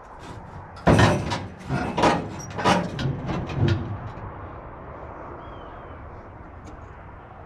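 A quick run of five or six loud bangs and rattles over about three seconds: the sheet-metal shell of a cut-down 1968 Dodge Charger knocking against the stock car chassis and roll cage during test-fitting.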